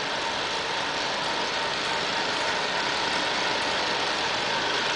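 Electric hoist running steadily as it raises a lighting truss, an even mechanical whir with a faint constant tone.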